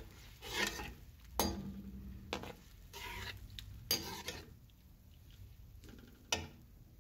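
A metal slotted spoon stirring and scraping tomato-and-onion masala around a metal kadai, giving about six sharp scrapes and clinks against the pan, irregularly spaced. The masala is frying faintly in oil beneath.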